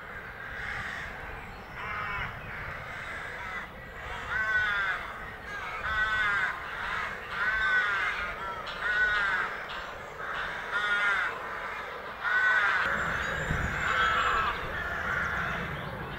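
Greylag geese honking: a run of repeated calls, about one a second, starting about four seconds in and stopping about three seconds before the end. A low rumble comes in near the end.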